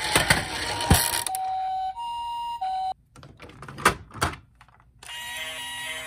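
Plastic toy ambulance knocking and clattering as it runs down a wooden slope, then its electronic two-tone siren sounding low, high, low before cutting off suddenly. After a short pause with two thumps, a toy police car's electronic siren sound starts up, pulsing evenly.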